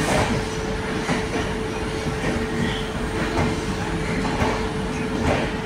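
Indian Railways LHB passenger coaches rolling slowly past, their wheels knocking over rail joints about once a second over a continuous rumble, with a steady hum underneath.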